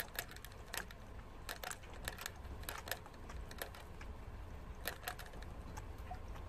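A prairie dog licking and mouthing the metal ball-tipped spout of a cage water bottle, drinking: irregular sharp clicks, some in quick pairs and clusters, as the spout's ball and metal tip are knocked.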